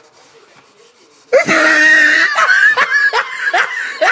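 A man breaks into loud laughter about a second in: a long high wheezing laugh, then rapid 'ha-ha' pulses about two or three a second.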